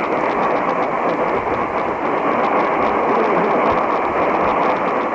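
Radio static: a steady hiss with faint crackles and no programme audio coming through.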